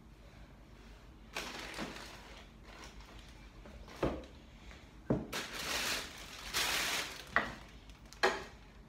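Plastic carrier bags rustling and crinkling as they are handled, in two stretches, with a few knocks of things being set down on a counter.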